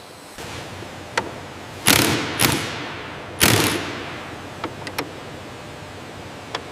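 Factory floor sounds: three loud sudden clunks with a short hissing tail, near 2, 2.5 and 3.5 seconds, among a few light clicks over a steady background hum.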